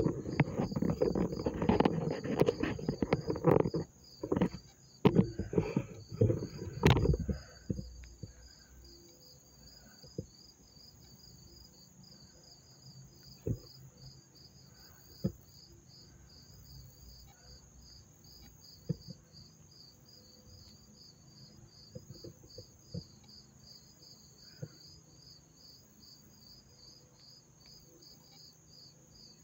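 Crickets chirping in a steady, even rhythm of about two to three chirps a second, over a constant high insect trill. The first several seconds are covered by loud rustling and knocks, after which the chirping is heard alone with a few faint clicks.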